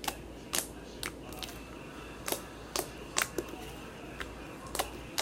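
Slime being poked with the fingertips: about ten sharp, irregularly spaced clicking pops.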